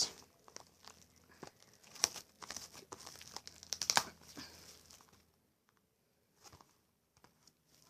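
Plastic wrapping being pulled off a Blu-ray case, crinkling and tearing in scattered sharp crackles that stop about five seconds in.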